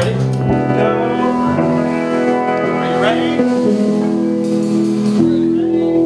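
A live band playing electric guitars and bass, ringing out held chords that change every second or two.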